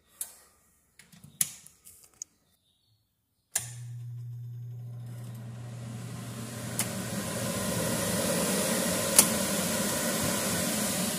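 A few light clicks, then about three and a half seconds in a kitchen range hood's exhaust fan comes on suddenly. It runs as a steady rush of air with a low motor hum that fades after a couple of seconds while the air noise builds, and there are two sharp clicks near the end.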